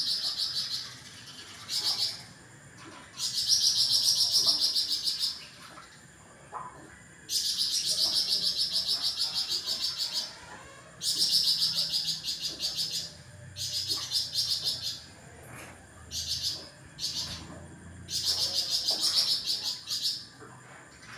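Songbird of the kind called 'flamboyan' in Indonesian bird-keeping, singing a high, rapid trill in repeated bursts of up to about three seconds, with short pauses between.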